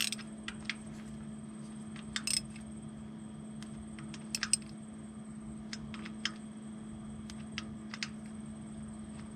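A wrench clicking and clinking irregularly on the metal fittings as the power steering line is bolted onto the tractor's hydraulic pump, over a steady low hum.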